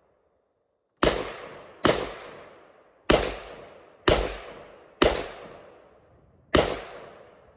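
Six single gunshots fired at an uneven, unhurried pace, each sharp crack dying away over about a second.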